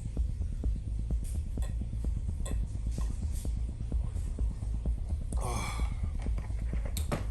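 Someone drinking apple juice: small clicks and swallows over a steady low hum. About five and a half seconds in comes a short sound that falls in pitch.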